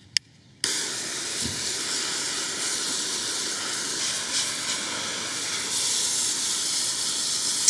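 Garden hose spray nozzle clicked, then turned on: a steady hiss of water jetting onto muddy ground, starting suddenly under a second in.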